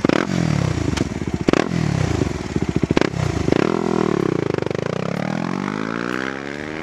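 A 2007 Yamaha WR250R's single-cylinder four-stroke engine, through an FMF PowerCore 4 Hex muffler, takes several sharp throttle blips, each starting with a crack and falling back. Then it pulls away, its pitch rising steadily over about two seconds.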